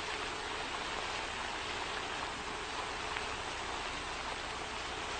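Steady, even hiss with nothing else: the noise floor of an old 1958 television soundtrack.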